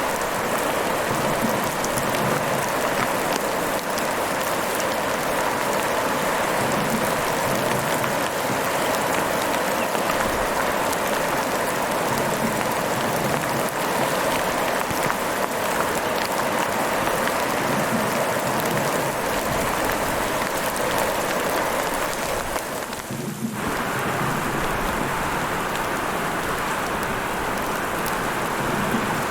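Heavy rain falling steadily, a dense even hiss of drops, with a brief dip in level about three-quarters of the way through.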